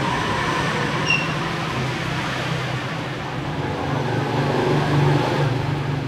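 Steady background rumble and hiss with a low hum running under it, and one brief high chirp about a second in.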